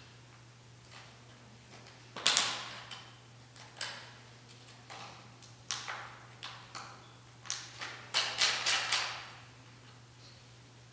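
A string of irregular sharp knocks and taps, about a dozen, the loudest a couple of seconds in and a quick cluster near the end, each trailing a short room echo.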